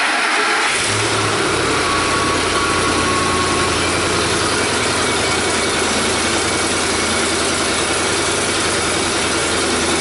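A 2006 Ford F-150's 5.4-litre V8, just started, running steadily and pretty loud, which the mechanic puts down to its exhaust manifolds.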